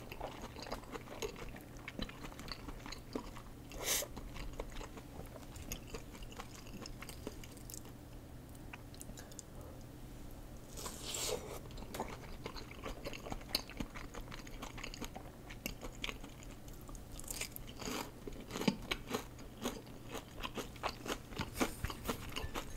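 A person chewing and biting food close to the microphone, eating curry ramen with chopsticks: steady wet chewing with many small clicks and crunchy bites. There are louder bites about four and eleven seconds in and a busier stretch of them in the last few seconds.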